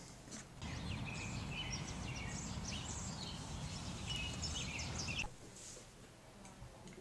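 Outdoor ambience: small songbirds chirping over a steady low rumble. It starts about half a second in and cuts off abruptly about five seconds in.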